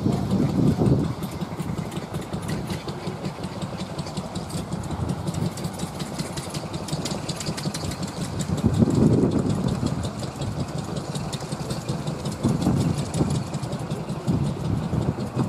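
An engine running steadily at idle, with rapid even firing pulses, briefly louder about nine seconds in.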